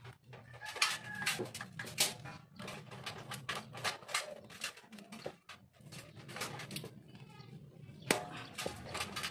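Irregular clicks and light taps of small carburetor parts and tools being handled, over a low steady hum.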